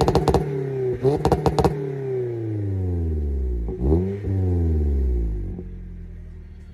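A 2020 Toyota Corolla hatchback's four-cylinder engine is revved twice through a Remark catback exhaust with dual tips. Each time the revs climb quickly and fall slowly back, with sharp crackles and pops near the first revs. It then settles to a quieter idle near the end.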